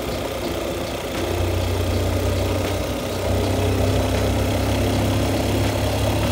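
Motorcycle engine running steadily while riding, with road and wind noise. It gets a little louder about a second in and again around three seconds in.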